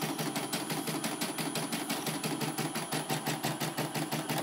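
Portable computerized embroidery machine stitching a design, its needle going up and down in a rapid, even rhythm of mechanical clacks.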